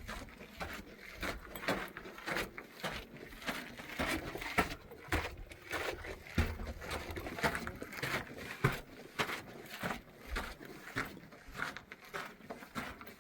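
Crunching footsteps with rustling, about one or two steps a second.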